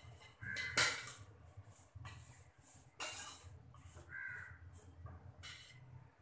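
Crows cawing: three short caws about two and a half seconds apart, with softer calls between them. A steel spatula stirs chopped tomatoes in an aluminium pot.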